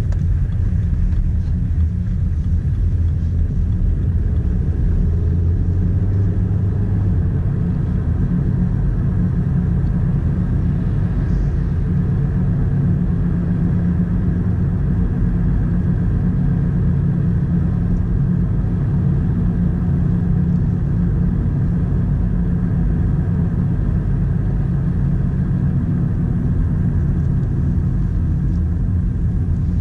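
Inside the cabin of a moving 2012 BMW 116i F20: steady low rumble of its 1.6-litre turbocharged four-cylinder engine and the tyres on the road while cruising.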